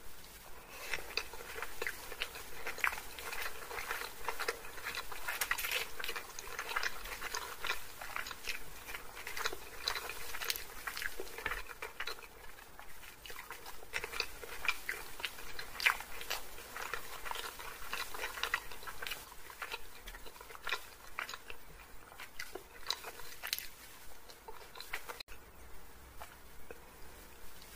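Close-miked chewing of saucy chilli chicken and chow mein, with many small wet mouth clicks while eating.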